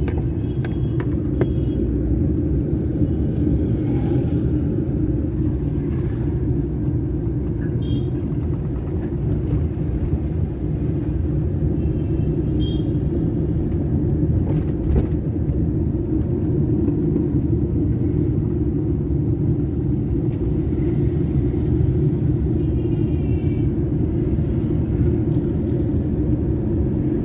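Steady low rumble of engine and road noise heard from inside a moving vehicle in street traffic, with faint short high tones from the traffic now and then.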